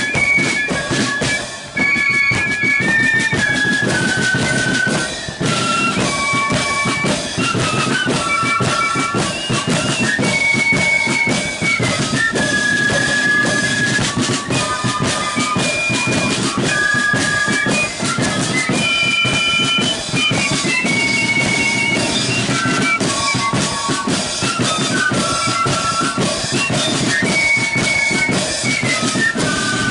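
Marching flute band playing a tune: massed flutes carry a melody of held notes over a steady beat of side and bass drums.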